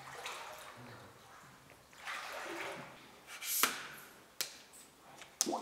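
Someone wading through water, sloshing and splashing, with a louder sharp splash about three and a half seconds in and two short knocks near the end.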